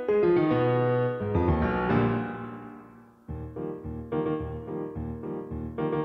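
Instrumental outro music on piano: a falling run of notes that dies away, then about three seconds in a new repeated pattern of notes over a bass line starts.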